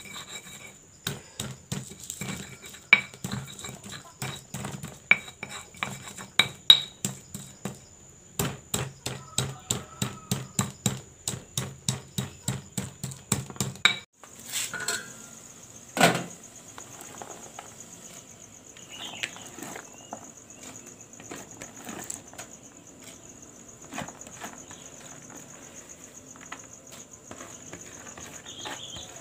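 Stone pestle pounding and grinding spices in a cobek mortar: quick sharp strikes, about three a second, that stop about 14 s in. After that, a steady high insect chirring, with a single sharp knock shortly after the pounding ends.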